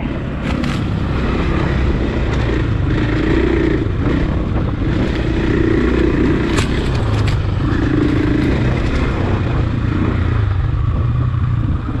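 Husqvarna 501 single-cylinder four-stroke dual-sport motorcycle engine running under way on a dirt trail, its revs rising and easing with the throttle. A few sharp knocks come through, one about half a second in and one past the middle.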